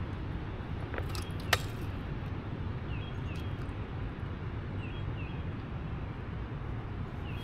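Wind buffeting the microphone: a steady low rumble. There are two sharp clicks about a second in, and faint short high chirps now and then.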